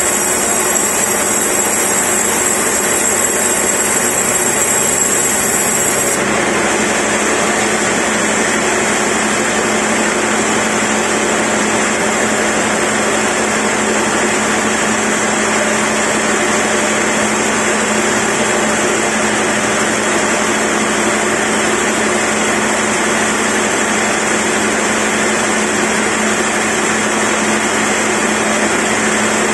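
Large log band saw running, its band blade ripping lengthwise through a big squared timber log: a loud, steady machine noise with a constant low hum.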